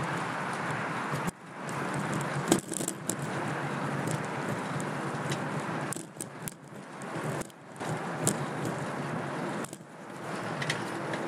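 Steady rushing wind and road noise from a fixed-gear bicycle being ridden, with scattered rattles and clicks, the loudest about two and a half seconds in. The rush drops out briefly a few times.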